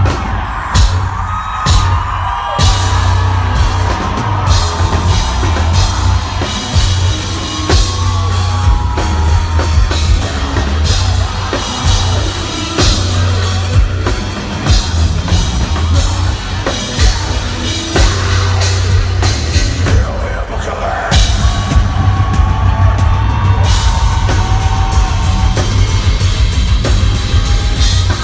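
Heavy metal band playing live and loud: distorted guitars and a heavy bass under a pounding drum kit, with the cymbal and drum hits coming much faster near the end.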